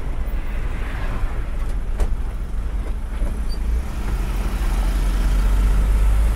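Engine and road noise of a moving vehicle heard from inside the cab: a steady low drone that grows a little louder after about four seconds, with one light click about two seconds in.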